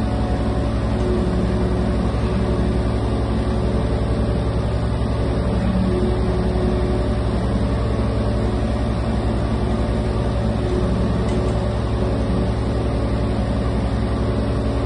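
2022 Kubota KX037-4 mini excavator's diesel engine running steadily, with a hum from the hydraulics that shifts in pitch now and then as the boom, arm and bucket are moved.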